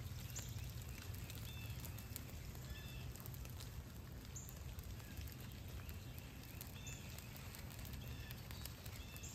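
Woodland ambience: a steady low background rumble with birds chirping, a short call every second or two, and faint scattered ticks.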